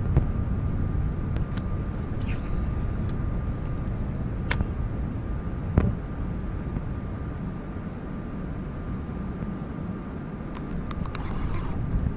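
Steady low rumble with a faint, thin, steady whine above it, broken by a few sharp clicks, the clearest about four and six seconds in.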